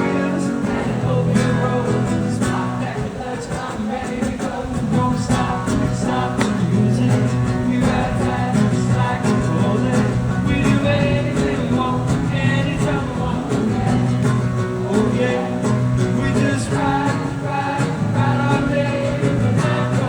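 A rock band playing live: electric guitar, bass and drums with a lead voice singing over them, running steadily throughout.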